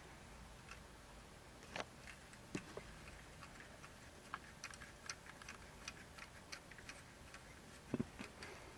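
Faint, irregular small clicks and taps of plastic stamp-kit pieces handled and fitted in the fingers, with one louder knock near the end.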